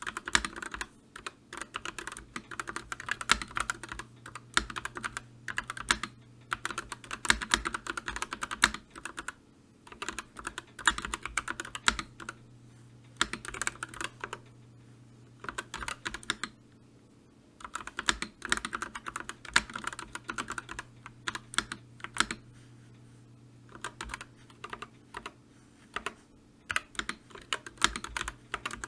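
Typing on a computer keyboard: rapid runs of key clicks in bursts of a few seconds, broken by short pauses, over a faint steady low hum.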